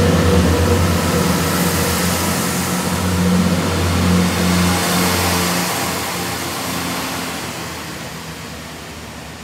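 Diesel multiple unit's engines running under power as the train pulls away, a steady low drone that fades out over the last few seconds as it moves off.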